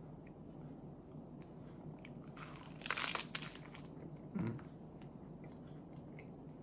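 A bite into a nori-wrapped rice ball, the seaweed wrapper crunching loudly about three seconds in, followed by quieter chewing.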